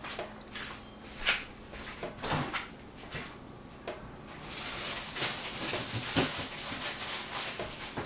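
A person chewing raw purple capsicum: scattered crisp crunches that thicken into a steady run of crunching about halfway through.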